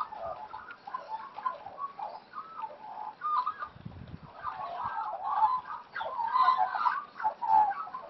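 Australian magpies warbling and chortling in a continuous jumble of short, wavering calls, busier and louder in the second half. A brief low rumble comes about halfway through.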